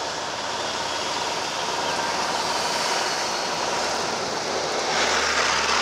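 Cessna 310R's twin piston engines and propellers droning steadily as the aircraft climbs out after takeoff, with a rushing noise that grows louder near the end.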